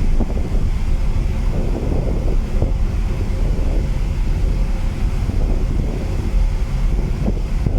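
Strong wind buffeting the microphone: a loud, heavy, ragged low rumble.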